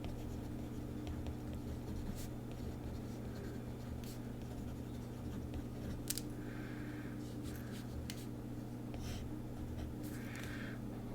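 Deco Rush roller tape applicator dragged across planner paper in several short, faint scraping strokes, with a few light clicks of handling.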